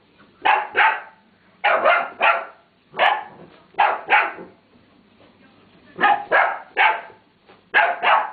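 Dalmatian puppy's high play barks at a toy, in quick runs of two or three short barks, with a pause of about a second and a half in the middle.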